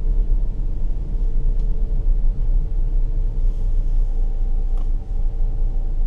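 Car driving slowly, heard from inside the cabin: a steady low road-and-engine rumble with a faint steady hum over it. A single light click comes near the end.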